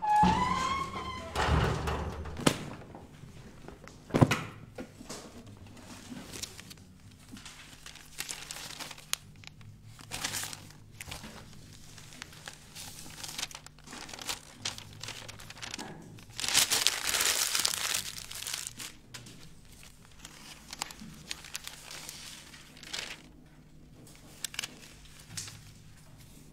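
Rustling and crinkling with scattered clicks, broken by sharp thuds about a second and a half and four seconds in, and a longer rustle past the middle. A short pitched call rises and falls at the very start.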